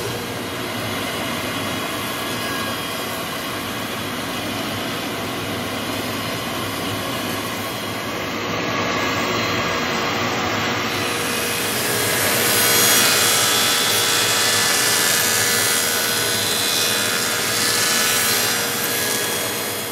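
Propeller copy lathe's spinning cutter wheel cutting into a laminated wood propeller blank: a steady grinding rush over the machine's running hum, growing louder and hissier about twelve seconds in.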